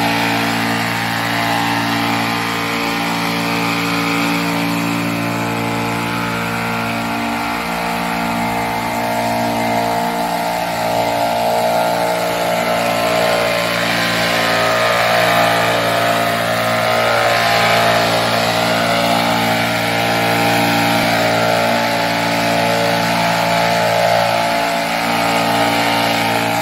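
Gas-powered backpack leaf blower running steadily, its engine drone under a strong rush of air from the nozzle as it blows dry leaves and dust across the pavement.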